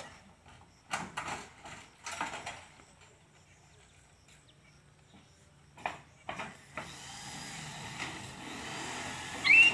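Scattered knocks and clatter from roofers working on the roof, several irregular strikes a few seconds apart, with a steady hiss rising behind them; near the end a rooster starts crowing loudly.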